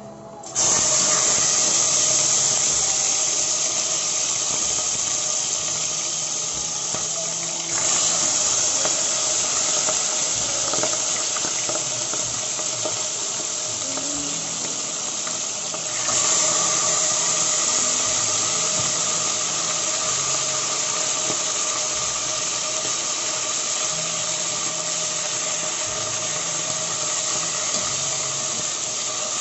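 Pork steak slices frying in hot oil in a stainless steel pot: a loud, steady sizzle that starts suddenly as the first slice goes in, then jumps louder again about 8 and 16 seconds in.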